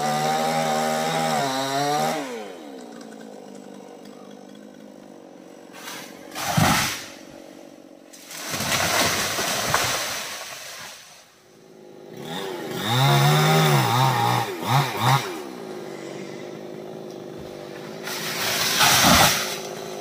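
Chainsaw engine revving up in about five bursts, its pitch sliding back down to a steady idle between them.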